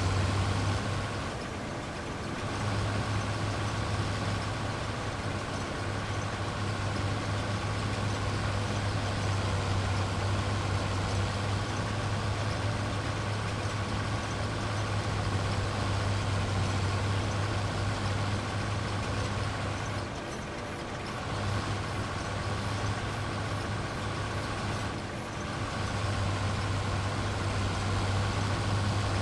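Heavy farm machinery engine running steadily with a constant low hum and a steady whine, easing off briefly about two seconds in and twice more near the end.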